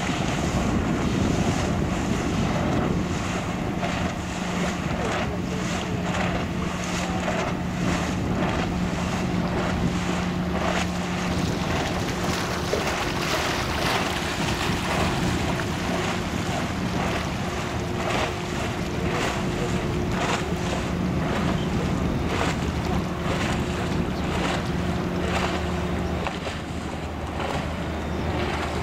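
Ferry engines droning steadily as the ship comes in to dock, with a deeper hum growing near the end. Wind buffets the microphone throughout.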